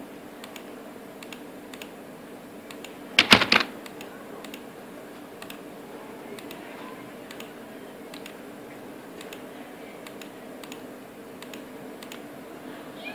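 Computer keyboard keystrokes and mouse clicks, scattered and irregular, with a loud quick cluster of clicks about three seconds in, over a faint steady hum.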